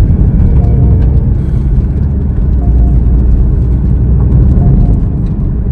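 Porsche 911's flat-six engine running with road noise as the car drives, heard from inside the cabin as a steady low rumble.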